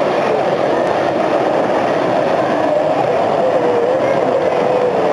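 65-year-old Gilbert American Flyer S gauge Santa Fe diesel passenger train running on the layout track: a steady running rumble with a faintly wavering whine.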